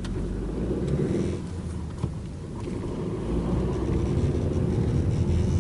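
Car engine and road noise heard from inside the cabin while driving slowly, with a single sharp click about two seconds in.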